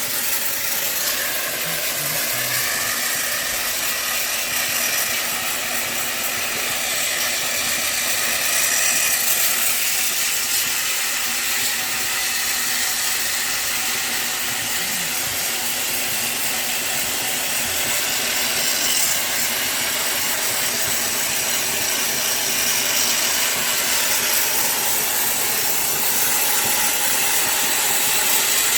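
Steady hissing spray from air-conditioner cleaning equipment.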